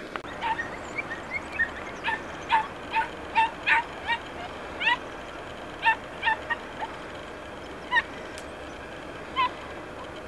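Podenco Orito hound puppies yelping while hunting rabbits: a string of about twenty short, high-pitched yelps at an irregular pace.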